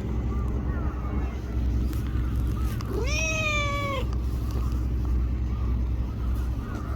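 A small tortoiseshell cat meows once, a call of about a second that rises at the start and then holds its pitch. A steady low rumble runs underneath.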